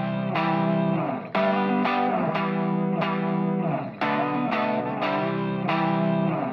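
Music: an electric guitar with distortion playing repeated chords.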